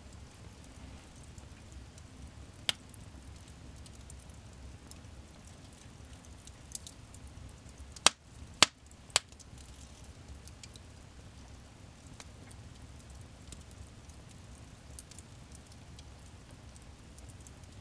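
Wood fire burning in a fireplace: a low steady rustle with faint scattered crackles, a sharp pop about three seconds in, and three loud pops in quick succession about eight to nine seconds in.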